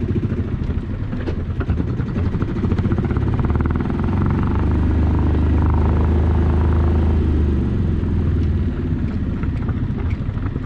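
A small sailing yacht's engine running steadily at low speed while manoeuvring in a marina. It grows louder for about three seconds midway, then eases back.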